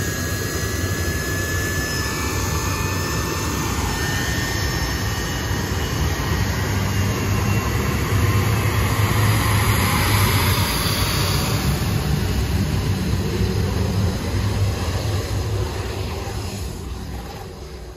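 Twin Rolls-Royce Spey turbofans of a Blackburn Buccaneer taxiing past and moving away down the runway: a steady jet rumble and hiss with a thin whine, loudest about halfway through and fading near the end.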